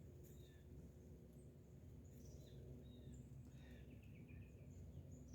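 Faint, scattered short high chirps and calls of small songbirds over a quiet background.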